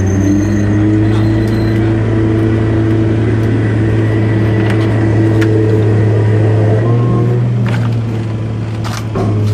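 Hydraulic drive of a scrap shear baler running with a steady low hum, its pitch shifting slightly about seven seconds in, with a few sharp clicks and knocks of scrap metal.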